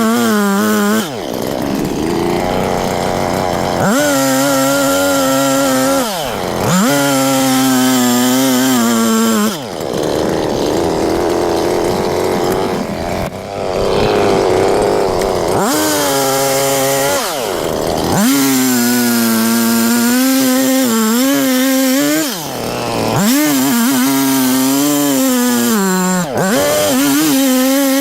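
Perla Barb 84cc two-stroke chainsaw running at high revs while cutting firewood. Clean, high full-throttle stretches alternate with rougher, lower-toned stretches as the chain loads in the wood, with a short drop in level every few seconds as the throttle is eased.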